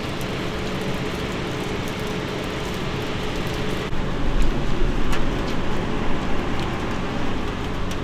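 Street ambience on a wet road with a steady low mechanical hum, with a few louder bumps about halfway through.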